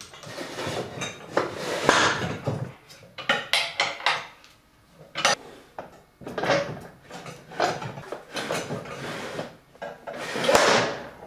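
Irregular knocks, clinks and rubbing of a large wooden band-saw wheel being handled and fitted onto its steel wheel mount.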